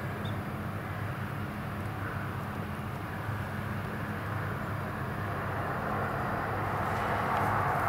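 Airbus A319 jet engines (IAE V2500 type) during the landing roll, a steady rushing sound that grows louder near the end as the aircraft comes closer.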